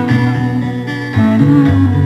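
Dance music led by plucked string instruments over a bass line, its notes changing every half second or so.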